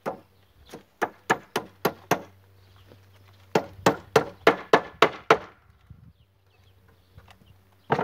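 Hammering on wood: two quick runs of sharp blows, about four a second, the first of about seven blows and the second of about eight, with a short pause between.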